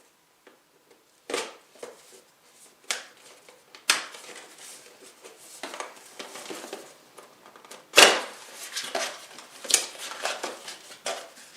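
Hands handling desktop computer parts: a series of sharp clicks and knocks, the loudest about eight seconds in, with lighter rustling and clattering between them.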